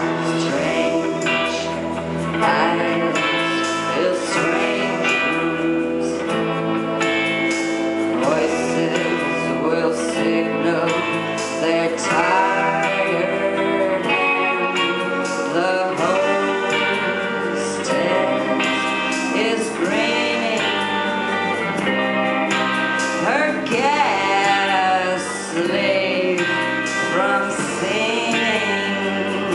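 Live rock band music: electric guitars playing steadily while a woman sings into a microphone over them.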